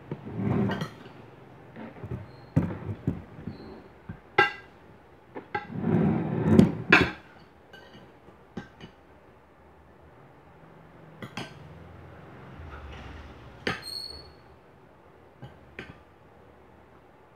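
Metal utensil clinking and tapping against a glass bowl as pomelo salad is picked out of it, in scattered single clinks, with a louder stretch of handling noise about six seconds in.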